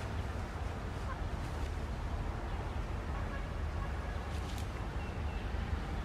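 Steady low wind rumble on the microphone, with a few faint rustles of dry grass and leaves as hands part the brush.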